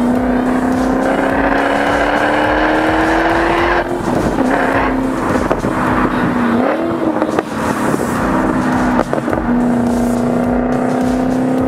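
Supercharged 5.0-litre V8 of a 2012 FPV GT 335 under way: the engine note and supercharger whine rise together for about four seconds as it accelerates through a gear, then the throttle lifts. A brief rise and fall in revs follows, and it settles to a steady cruise for the last couple of seconds.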